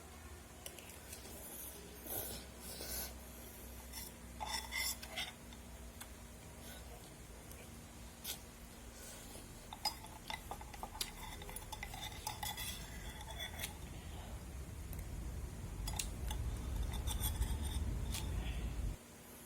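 Eating utensils clinking and scraping against dishes in scattered light clinks and knocks. A low rumble grows louder over the last few seconds and cuts off suddenly near the end.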